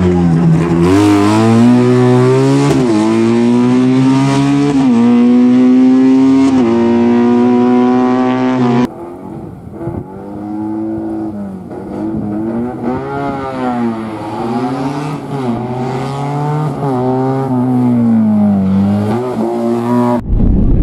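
A small classic Fiat 500-style race car's engine revving hard, its pitch climbing and dropping again and again through gear changes and lifts. About nine seconds in the sound cuts to another run, which starts quieter and then builds, again rising and falling with the revs.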